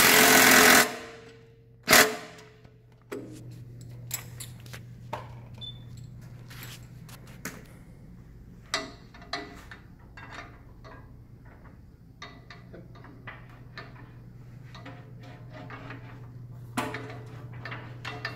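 Cordless impact driver hammering the pulley's shoulder bolt tight, stopping just under a second in, followed by one sharp metallic click. After that come scattered light clicks and taps of hardware being handled, over a steady low hum.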